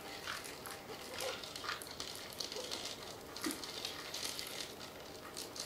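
Faint crackling and rustling of a houseplant being worked out of its pot: loose granular substrate (aquarium stratum and clay pebbles) shifting and the plastic nursery pot flexing, with scattered small clicks.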